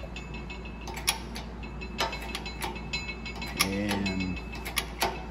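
Scattered light metal clicks and taps from a bushing driver seating a new bronze bushing in an E4OD/4R100 transmission pump stator, with one short creak about three and a half seconds in.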